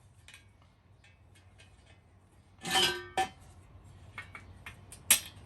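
Metal bicycle parts being handled: faint clicks, then a loud ringing metal clank a little before halfway, a second shorter clank just after it and a sharp click near the end.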